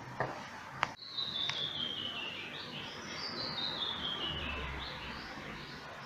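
A songbird singing two descending trills, each a run of quick notes stepping down in pitch over about a second and a half, after a couple of light clicks in the first second.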